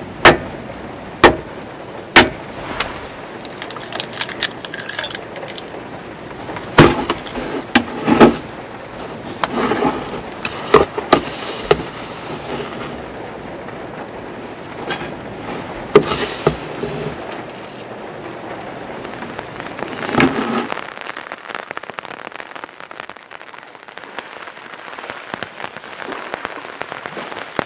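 Sharp knocks and clicks as eggs, a wooden spoon and a cup are handled on a wooden table, over a steady hiss. About 20 seconds in, the knocks stop and only an even hiss of falling rain is left.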